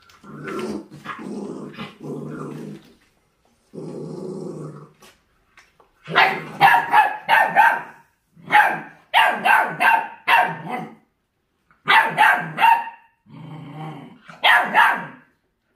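Dogs squabbling over raw meat: a puppy and a long-haired dachshund growl low for the first few seconds, then break into a run of loud barks about six seconds in, roughly one bark burst a second. The noise is food-guarding over raw food.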